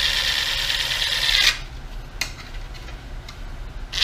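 A small handheld power tool running while it cleans the inside edge of a gauge-cluster bezel. It stops about a second and a half in, a few light clicks follow, and it starts again near the end.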